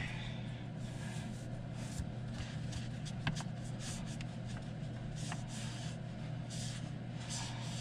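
Space heater running on low with a steady low hum, under faint rustling and a few light clicks of handling.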